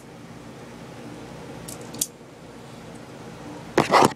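Light plastic clicks and handling of a Stinger P311 airsoft pistol and its magazine as a single BB is loaded: two light clicks about two seconds in, then a louder, short clatter near the end.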